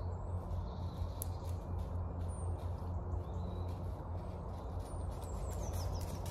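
Woodland ambience: a steady low rumble with several faint, short bird chirps high above it and faint scattered steps.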